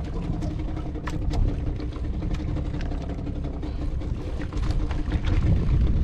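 A boat engine idling steadily under a heavy low rumble, with several short sharp clicks scattered through.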